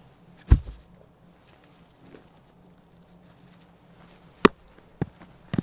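A few sharp knocks: one heavy thud about half a second in, then three quicker knocks near the end, about half a second apart.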